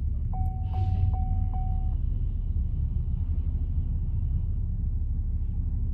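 Steady low road and engine rumble heard from inside a moving car's cabin. Early on, a thin steady electronic tone sounds for about a second and a half, with a few faint clicks over it.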